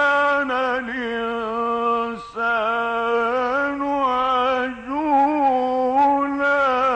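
A male Quran reciter chanting a long, melodic phrase in tajwid style, holding and ornamenting sustained notes, with a brief break about two seconds in.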